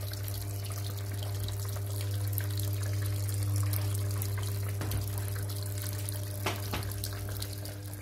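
Top-loading washing machine filling: a stream of water pours from the detergent dispenser into the drum, onto a plush doll and a heap of powdered detergent, with a steady low hum underneath.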